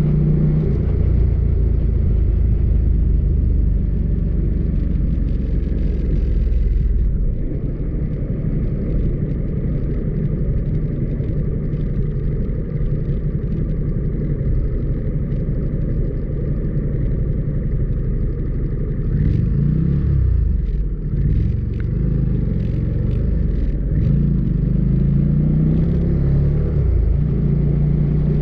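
Motorcycle engine running steadily at road speed with a low rumble. In the last third the engine note twice drops and climbs again.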